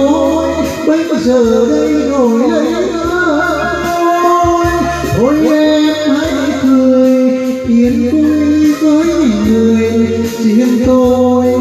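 A man singing into a karaoke microphone over a backing track, his voice sliding between notes above a stepping bass line.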